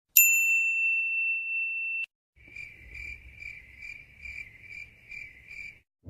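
Stock sound effects: a bright, high ding held for about two seconds and then cut off abruptly. After it comes rhythmic cricket chirping, about two to three chirps a second, over a faint low rumble.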